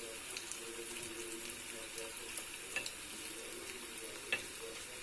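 Butter and thinly sliced quince with ginger sizzling steadily in a pan as they roast, with two sharp clicks a little over halfway and near the end.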